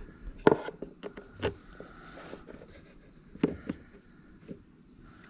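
Scattered light clicks and knocks, about six of them, from hands and tools working on an ATV's starter wiring. A faint high chirping, like a cricket, comes and goes in the background.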